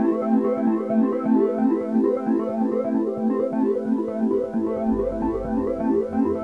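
Background music with a quick, repeating keyboard pattern. Near the end a low bass line joins in.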